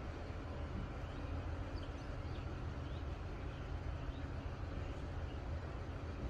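Heritage railway carriage running along the track: a steady low rumble of the moving train. A few faint bird chirps come through in the middle.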